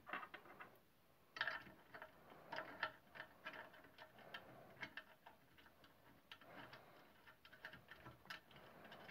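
Faint, uneven small clicks and light scrapes of a hex key turning the screws that fasten a guard to a belt and disc sander; the sander's motor is off.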